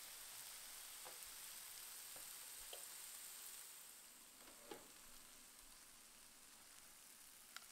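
Chicken pieces and bacon-wrapped sausages faintly sizzling on a raclette grill's hot plate: a steady fine hiss that eases a little about halfway through, with a few small pops and clicks.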